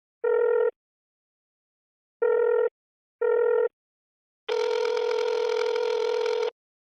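Electronic telephone ringing tone at a steady pitch: a short beep near the start, two more short beeps a second apart, then one longer tone lasting about two seconds.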